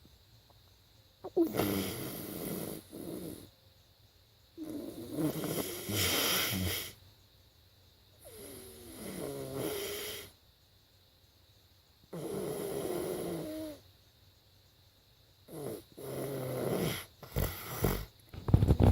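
A man snoring in his sleep: five drawn-out snores of about two seconds each, a few seconds apart, then a burst of louder, choppier sounds near the end.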